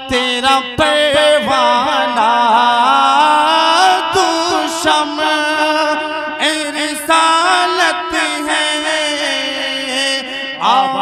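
A man singing a naat (Urdu devotional praise of the Prophet), drawing out long, wavering melodic lines with few breaks.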